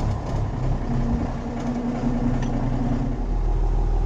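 Tractor diesel engine running steadily, a low rumble with a constant hum.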